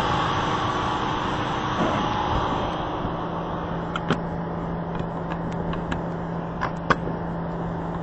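30-ton Mammoth rooftop HVAC unit running with a steady, even noise, which turns a little quieter about three seconds in and leaves a steady low hum. Sharp clicks from the access door's latch come about four seconds in and twice near the end.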